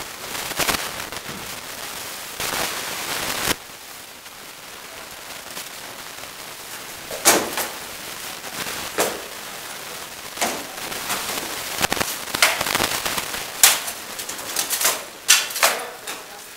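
Rattan swords striking shields and armour in sharp cracks, single blows at first and then rapid flurries of several hits toward the end, echoing off bare walls.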